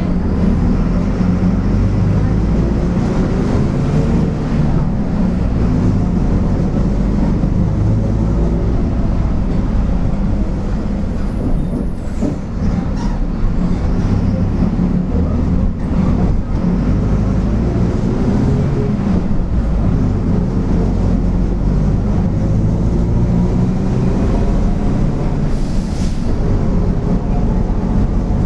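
Mercedes-Benz OF-1722M bus diesel engine running under way, with its driveshaft (cardan) growling. The low rumble rises and falls in pitch several times as the bus accelerates and slows, with a few short knocks in the middle.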